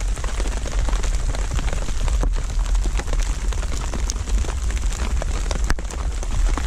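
Steady rain mixed with small hail falling, with many sharp scattered ticks of hailstones striking surfaces over a dense hiss, and a steady low rumble underneath.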